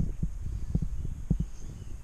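Footsteps walking through dry grass on muddy ground, a low dull thud with each step, a little under two steps a second.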